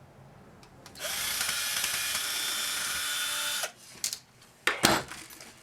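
Cordless drill-driver running for nearly three seconds, spinning up and winding down, backing a long screw out of a laminator's housing. It is followed by a few sharp clicks and knocks of metal and plastic parts being handled.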